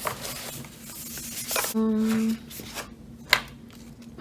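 Rustling and handling of keyboard packaging and plastic, with a short steady hum about halfway and a sharp click near the end.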